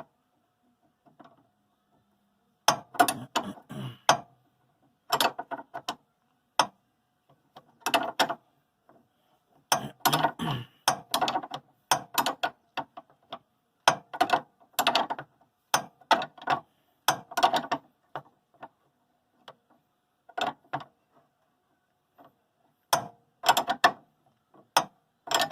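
Ratchet wrench clicking in short, irregular bursts as it is swung back and forth on the nut of a car's stabilizer bar link.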